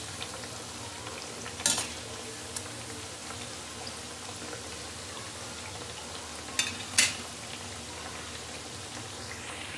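Kachoris deep-frying in hot oil in an iron kadai, with a steady sizzle. A slotted metal spoon clicks and scrapes against the pan a few times: once about two seconds in and twice around seven seconds in.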